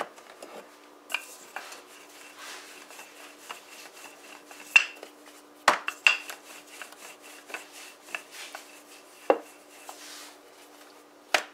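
Wooden rolling pin rolling out a round of roti dough on a countertop, with light rolling and scraping and scattered sharp knocks as the pin is handled and set down. A faint steady hum runs underneath.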